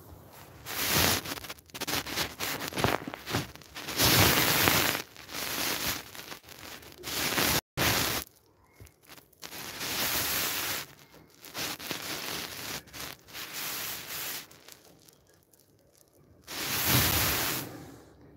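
Irregular bursts of rustling, scratchy noise, typical of a handheld phone's microphone being rubbed and moved, with a split-second dropout near the middle.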